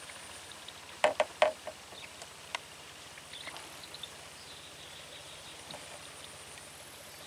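Three quick, sharp knocks about a second in, followed by a few fainter ticks, over a quiet background with a faint low steady hum.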